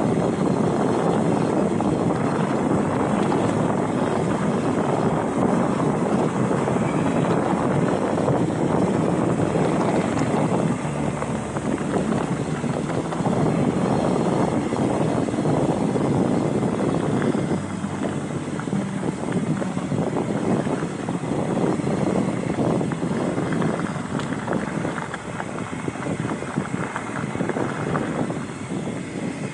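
Steady rush of wind buffeting the microphone, with rumble from the mountain bike rolling over a dirt single-track trail.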